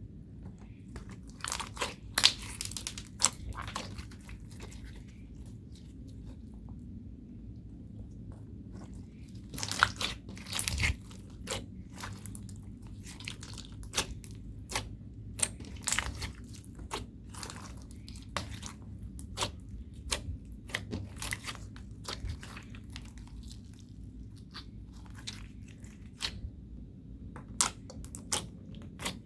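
Homemade slime being squeezed, poked and mixed by hand, giving off irregular crackling pops and clicks. The pops come thickest about two seconds in, again about ten seconds in, and near the end.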